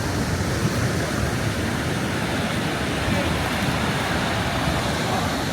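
Strong wind blowing onto the microphone: a steady rushing noise with a churning low rumble.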